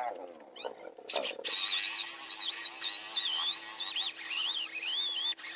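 Cordless drill boring into a thick wooden slab, its whine wavering up and down in pitch as the bit bites. It starts about a second and a half in and stops just before the end.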